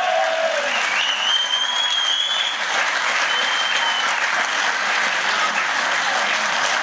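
Crowd applauding, steady clapping throughout. A high drawn-out whistle rises slightly over it about a second in, and a shorter one follows a couple of seconds later.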